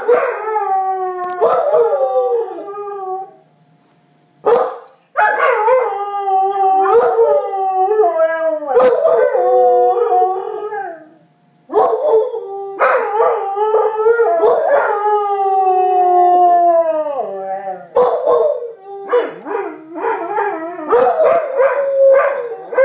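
A dog howling: long, wavering howls that slide down in pitch, in several bouts with short pauses between them. The howls break into shorter, choppier notes near the end.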